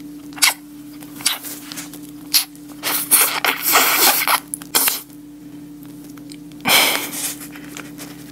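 Wet lip smacks, kissing and slurping mouth sounds against a fish-shaped Bungeo Samanco wafer ice cream sandwich: a few short sharp smacks, then a dense run of them in the middle, and a breathy burst near the end. A faint steady hum lies underneath.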